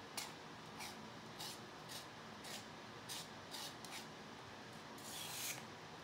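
Small metal tool scraping along the edge of a freshly poured acrylic panel in short, repeated strokes, roughly one every half second to second, with a longer, louder scrape about five seconds in.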